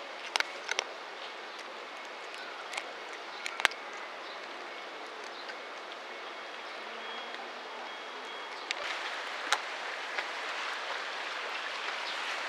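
A cat crunching dry kibble: scattered sharp clicks over a steady outdoor background hiss.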